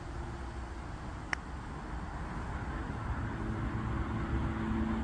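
A single sharp click about a second in, a putter striking a golf ball on a long uphill putt, over a steady low outdoor rumble.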